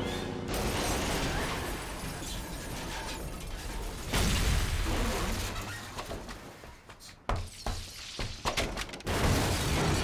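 Car-chase crash sound effects from a film soundtrack: vehicles smashing, with glass shattering and metal impacts. A loud surge of crash noise comes about four seconds in, and a quick run of sharp crashes follows in the last three seconds.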